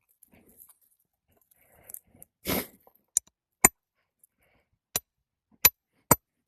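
Hammer blows during roof shingle repair: a short scraping rasp about two and a half seconds in, then six sharp strikes half a second to a second apart.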